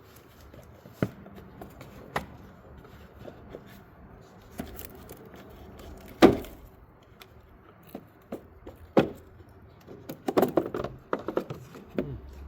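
Plastic engine airbox being opened by hand: a series of sharp clicks and knocks from the housing's clips and lid, loudest about six seconds in, with a quick flurry of rattling clicks near the end as the cover and air filter are handled.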